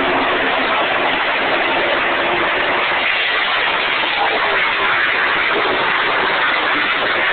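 A field of race cars running at speed around an oval track: a loud, steady wash of engine noise.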